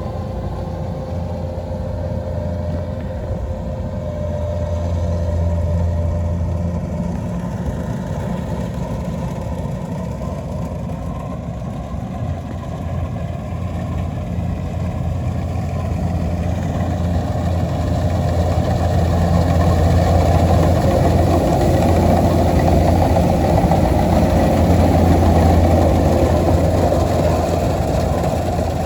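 Kubota DC-93 combine harvester's diesel engine running steadily while it harvests rice, with a low hum and machinery noise that grow louder a little past halfway through.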